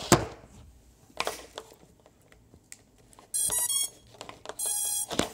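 Power-up beeps from the Diatone Tyrant S drone's ESCs played through its motors: a short run of stepped beeps about three seconds in, then a longer beep near the end. Handling knocks come before them, the loudest right at the start.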